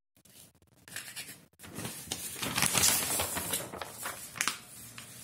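Sheets of a folded paper booklet rustling and crinkling as they are handled and flipped over, loudest around the middle.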